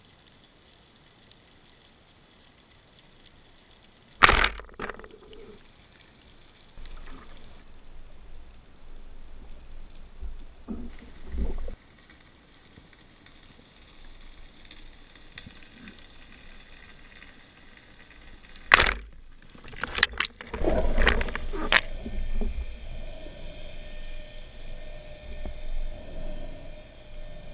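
Underwater sound of a spearfishing dive: a sharp loud click about four seconds in, a second loud crack about two-thirds of the way through, then a burst of knocks and rattles as a fish is speared and brought in on the speargun's shaft and line, with a faint steady hum near the end.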